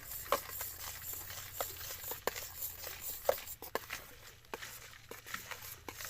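Irregular clicks and light scraping of a utensil stirring a half-frozen ice-cream mixture in a container set in salted ice.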